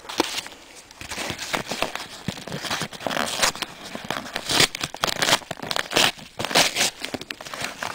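Paper postal envelope being handled and torn open: irregular crinkling, rustling and tearing of paper, with louder spells past the middle.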